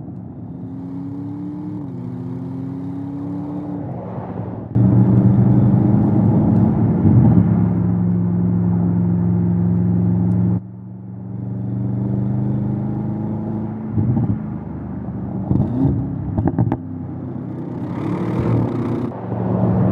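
Audi RS7 Sportback Performance's 4.0-litre twin-turbo V8 engine and exhaust running on the road, with a steady low drone. It gets suddenly louder about five seconds in and drops back abruptly about halfway through.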